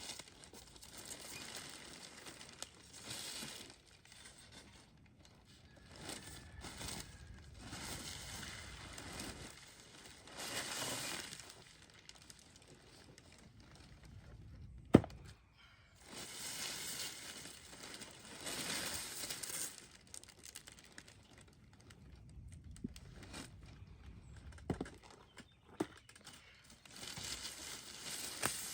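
Packing paper being handled and crumpled in rustling spells while coop pieces are unpacked, with one sharp knock about fifteen seconds in.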